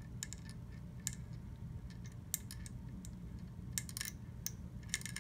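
Scattered light clicks and taps, a few of them sharper, from hands handling a scoped rifle with a bore pull-through cord run through its barrel.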